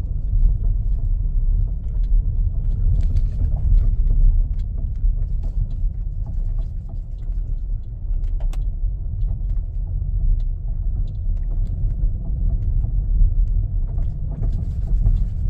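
Changan UNI-K driving over a rough road: a steady low road rumble with irregular knocks and clicks from the suspension, a knock which the owner takes for a worn ball joint.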